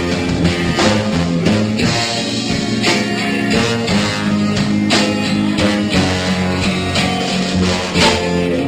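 Rock band playing an instrumental passage led by guitar, with drums keeping a steady beat.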